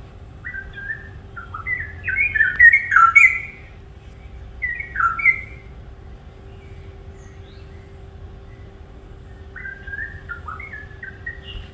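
A songbird singing in three bouts of quick, short notes that each drop in pitch: one bout in the first few seconds, a shorter one around five seconds in, and another near the end.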